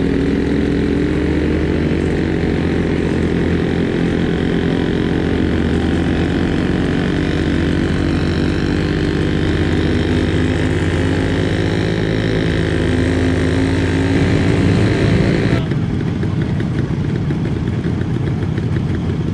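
Vintage scooter engines running while the group rides along a road, the engine note rising and falling a little, with wind hiss. About three-quarters of the way through the hiss cuts off abruptly and a lower engine rumble goes on as the scooters pull up.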